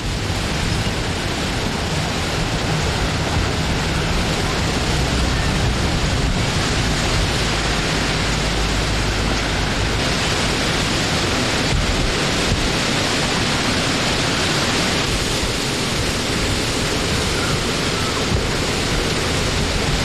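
Wind blowing steadily, an even rushing noise with a low rumble underneath and only slight slow swells.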